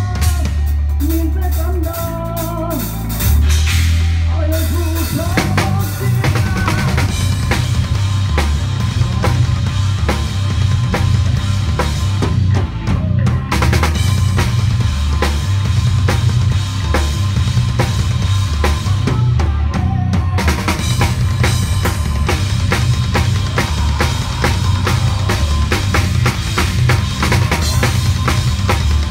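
A PDP drum kit with two bass drums played hard and fast in a live band: quick kick-drum strokes, snare and cymbal hits over steady low bass notes. For the first few seconds the band's guitar notes lead, then the drumming takes over and stays dense.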